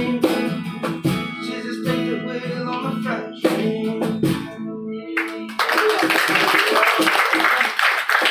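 Acoustic guitar strumming sustained chords as a song ends, with some singing. About five and a half seconds in, the guitar stops and applause breaks out.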